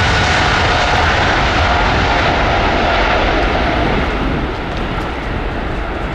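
Jet airliner's engines passing close by, loud with high whining tones over the rush, fading from about four seconds in as the plane moves away.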